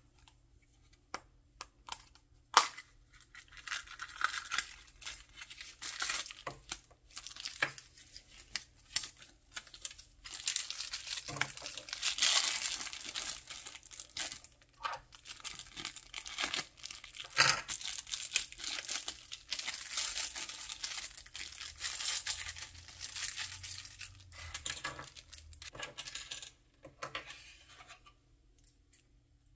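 A hard plastic gacha capsule clicked open, then a clear plastic bag crinkling and tearing as a small figure is unwrapped, with scattered sharp plastic clicks. The crinkling dies away near the end.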